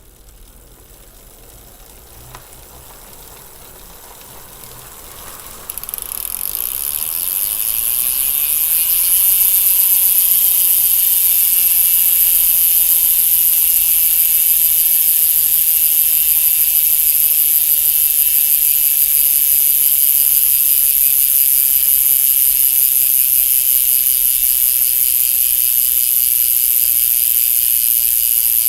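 Bicycle rear freehub ratcheting as the wheel freewheels, its pawl clicks so fast they run together into a high buzz. It grows louder over the first several seconds, with a jump about six seconds in, then holds steady.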